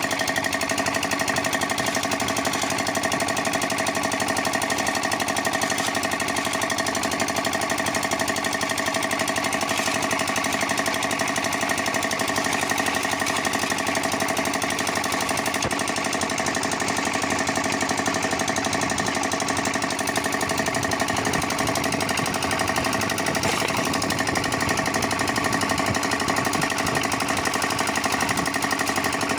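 Concrete mixer machine running steadily: a continuous, rapid mechanical clatter with a constant hum that does not change.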